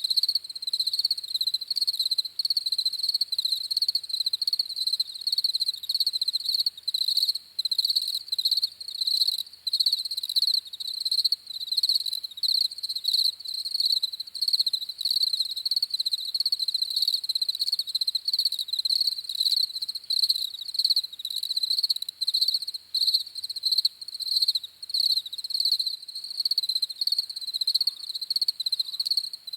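Crickets chirping: a continuous high-pitched trill made of rapid pulses, broken by brief gaps about every second.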